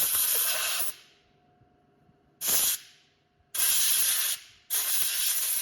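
Compressed air from an air compressor's blow gun, fired in bursts of loud hissing to blow dust out of graphics cards: one ending about a second in, a short one midway, then two longer ones.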